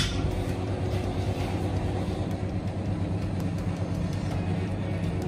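Steady low mechanical hum, even in pitch and level.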